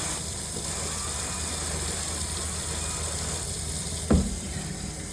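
Steady hiss of running water, with a single thump about four seconds in.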